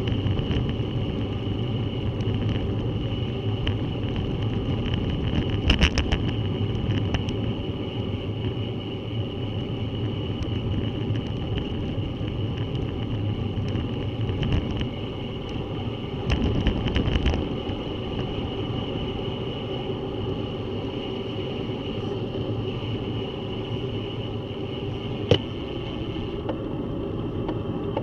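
Bicycle descending a rough, patchy lane: a steady rumble of tyres on the road surface, with clusters of rattling knocks over bumps about six seconds in and again around sixteen to seventeen seconds, and one sharp click near the end.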